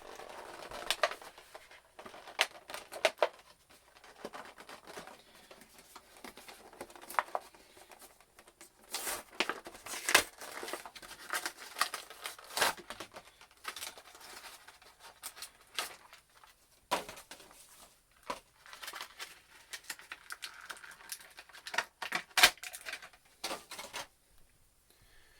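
A boxed action figure's cardboard and plastic packaging being opened by hand: crinkling and tearing with many irregular sharp clicks and snaps. The sounds stop about a second before the end.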